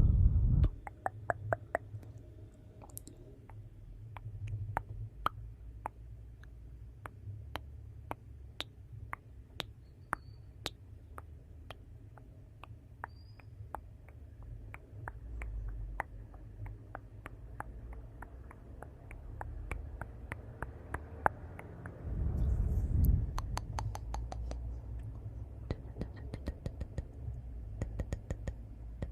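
Wood fire crackling in a fireplace: many sharp pops and snaps, irregular and dense, over a low steady rumble of the flames. The rumble swells briefly about three quarters of the way through.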